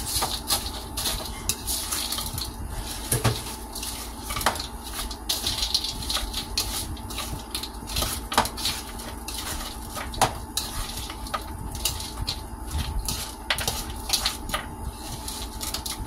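Caesar salad being tossed by hand in a plastic bowl: lettuce rustling, with frequent irregular light clicks and knocks.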